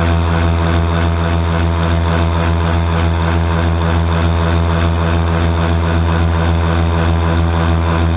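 Airboat's engine and propeller running under power, a loud, steady drone with a fast even pulse.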